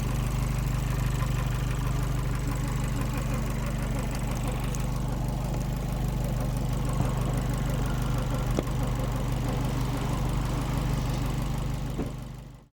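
Abarth 595 Competizione's turbocharged four-cylinder engine idling steadily, carrying the engine-bay noise that the owner likens to a belt squealing; the sound fades out near the end.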